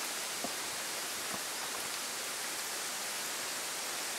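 Steady, even hiss of outdoor night background noise, with two faint ticks about half a second and a second and a half in.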